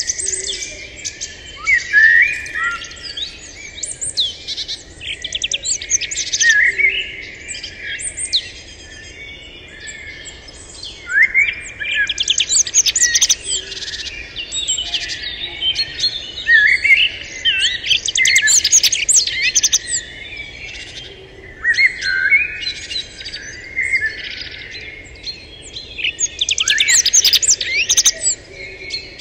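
Wild birds chirping in a busy chorus: quick, high chirps and trills that come in bursts of a few seconds with short lulls between.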